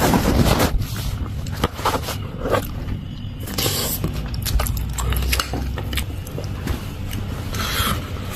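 Handling noise from a handheld phone camera being carried and moved about: rustling and scraping with scattered clicks and knocks over a low rumble.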